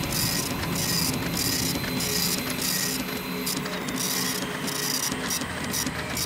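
Teleprinter-style printing sound effect: short bursts of rapid mechanical chatter, several a second, over a low steady drone.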